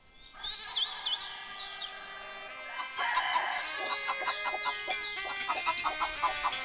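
A rooster crowing, with quick high bird chirps over it. About three seconds in, music with a plucked, rhythmic beat comes in under it.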